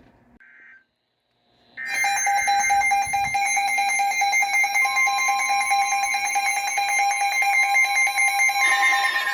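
NOAA Weather Radio emergency alert. After a short beep and a brief dropout, a loud, rapidly pulsing electronic alarm tone starts about two seconds in. A steady warning tone near 1 kHz joins it about five seconds in. The alert signals an incoming severe thunderstorm warning.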